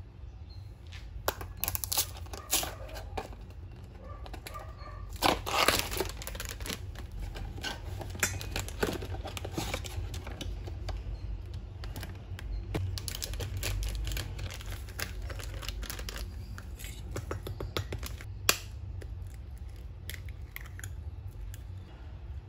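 Pancake-mix box and its inner plastic packet being torn open and crinkled in several irregular bouts, loudest about five seconds in, with light clicks and one sharp tap near the end. A steady low hum runs underneath.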